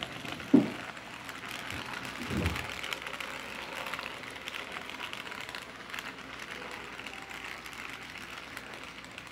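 Model freight train cars rolling past on the track: a steady rattle of small wheels clicking over the rails, with a sharp knock about half a second in.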